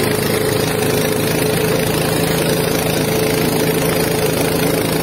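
Farm tractor engine running steadily while its rear wheel churns through deep floodwater, with a constant wash of splashing water.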